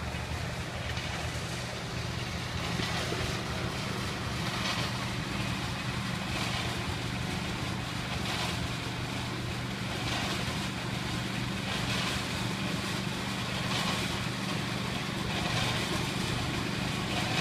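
Engine running steadily at a constant speed, a low even hum.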